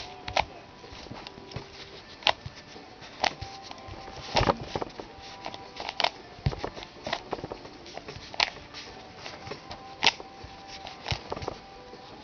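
Plastic Rubik's Cube being turned by hand: irregular sharp clicks and clacks as the layers are twisted, several a second, with a few louder clacks scattered through.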